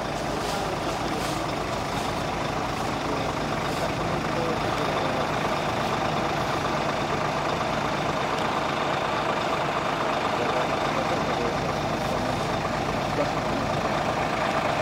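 Parked fire engines' diesel engines idling steadily, a constant low hum with no siren sounding.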